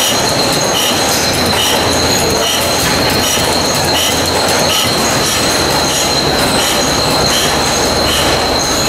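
Running stationary gas engine among other running machinery: a steady mechanical clatter with a constant high whine, and a short high squeak about every 0.8 seconds that fits the little pendulum rub pointed out on this engine.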